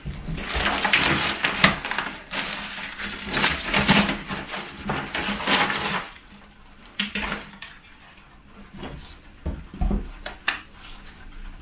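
Plastic and cardboard packaging rustling and crinkling as a framed picture is pulled out of a parcel box, dense for about six seconds. Then a few scattered clicks and light knocks as the frame is handled.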